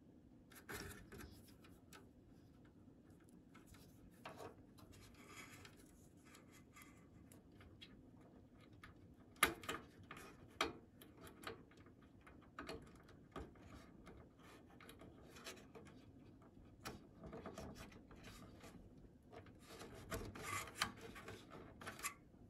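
Faint rubbing and small plastic clicks from fingers handling a CPU cooler fan's cable and plugging its connector onto the motherboard's fan header, with a few sharper clicks about ten seconds in.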